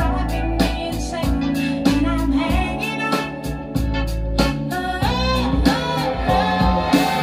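Guitar-driven song with a steady beat and a singing voice, played turned up through a hi-fi system: floor-standing loudspeakers driven by AGD Production Audion monoblock amplifiers, heard in the listening room.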